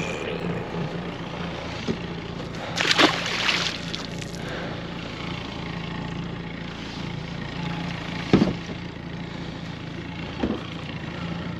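A small motor running with a steady low hum over water noise, with a few knocks about three, eight and ten seconds in.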